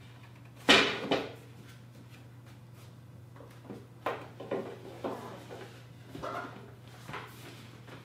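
A rigid cardboard product box being handled and pulled apart. One sudden loud cardboard sound comes about a second in, then softer scattered rustling and tapping of the packaging.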